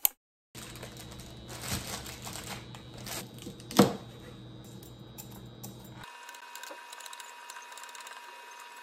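Kitchen clatter of utensils and items being handled during cooking: irregular knocks and clicks, with one sharp knock about four seconds in. From about six seconds a steady high tone takes over.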